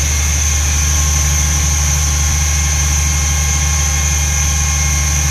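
Six-cylinder diesel engine driving a feedwater pump, running steadily. A steady high whine sits above the low engine hum.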